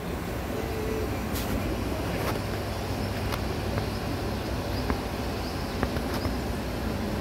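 Steady low rumbling outdoor noise with a few faint ticks.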